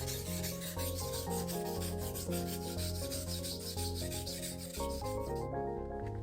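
Steel knife blade rubbed back and forth on a coarse 180-grit whetstone, a rasping scrape as the rust and chipped edge are ground away; it stops about five and a half seconds in. Background music plays throughout.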